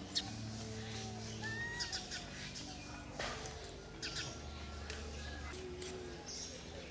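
Soft background music of long, steady low notes, with birds chirping now and then and a few sharp clicks over it.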